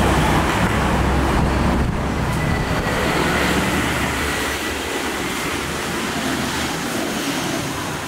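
Street traffic with motor scooters passing close by. A low engine rumble is loudest at the start and gradually fades.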